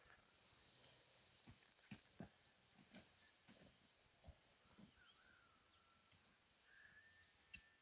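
Near silence, with faint scattered clicks and knocks and a few faint short high chirps.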